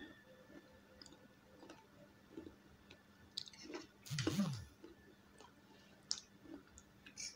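Close-miked chewing of Maggi instant noodles, with scattered small clicks of steel forks against steel plates. One louder, longer mouth sound comes about four seconds in.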